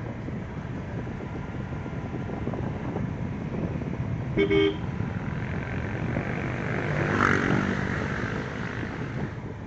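Car driving with a steady engine and road rumble. About halfway through, a car horn toots once, briefly. Near the end a louder rush of noise swells and fades.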